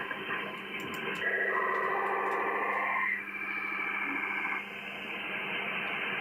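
Amateur-radio receiver audio from the 80 m band: steady band hiss with a low hum, and about a second in a stack of many warbling data tones that sounds for about two seconds, the upper tones trailing on a little longer before only hiss remains. This multi-tone data transmission is the kind of signal that paints images onto an SDR waterfall.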